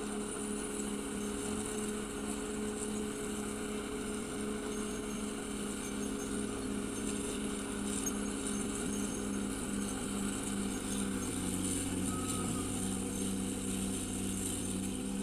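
CAT D6R XL bulldozer's diesel engine running steadily under working load, with a steady high whine above it.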